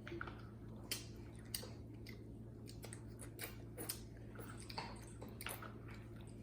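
Faint eating sounds: soft chewing and mouth smacks of spaghetti being eaten, with scattered small clicks, over a low steady hum.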